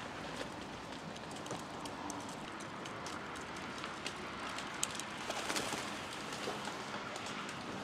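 Feral pigeons feeding, with cooing and short pecking clicks. About five seconds in, a flurry of wingbeats as the flock takes off.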